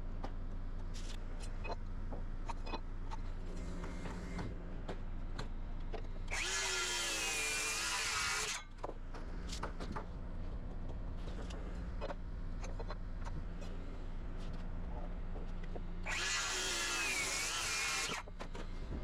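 A power tool runs twice on wood, each run about two seconds, about six and sixteen seconds in, its pitch wavering under load. Scattered light knocks sound throughout, over a steady low hum.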